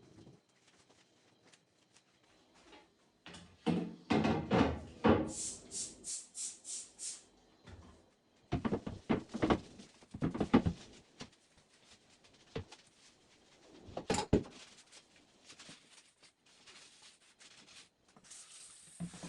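Refrigerator being cleaned out by hand: knocks, clatter and rubbing of shelves, drawers and containers being handled and set down. A quick run of about six short hissing bursts comes about six seconds in.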